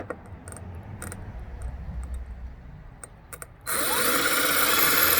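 A few handling clicks, then about three and a half seconds in an electric drill starts up and runs steadily, boring into a planter.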